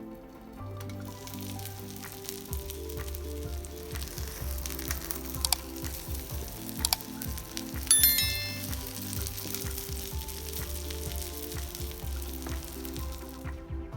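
Cabbage-and-egg mixture frying in a pan, a steady sizzle that starts about a second in and stops shortly before the end, over background music. A sharp clink with a brief ring about halfway through is the loudest sound, with a few lighter clicks just before it.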